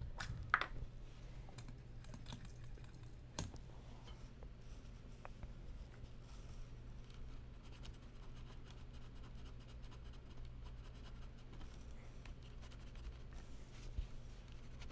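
Faint scrubbing and scratching as flux residue is wiped off a laptop circuit board beside the fan connector, over a steady low hum. A few sharp clicks: near the start, about three and a half seconds in, and near the end.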